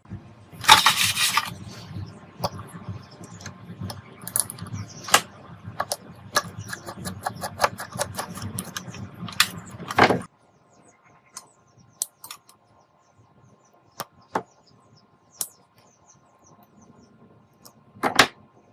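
Hand-work noises on small parts: a rough scrape about half a second in, then rubbing with scattered clicks and taps that stop abruptly about ten seconds in. A few isolated clicks follow, with a sharper one near the end.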